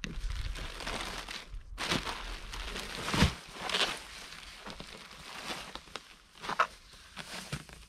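Plastic wrapping crinkling as it is pulled off a roll of foil bubble insulation, with a thump about three seconds in as the roll is laid down on a plywood board. This is followed by rustling and crackling as the foil insulation is unrolled across the board.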